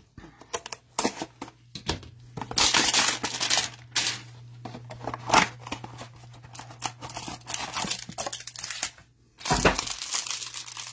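Trading card pack wrapper being torn open and handled: a run of irregular tearing and crinkling noises, with a dull thump near the end.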